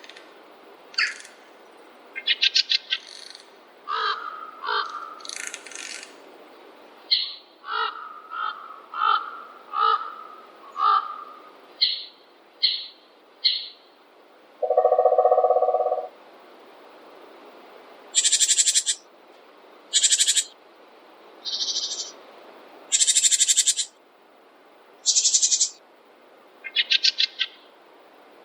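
Birds calling one after another: a run of short chirps and trills of several kinds, one lower, longer call about halfway through, and a faint steady hiss of background.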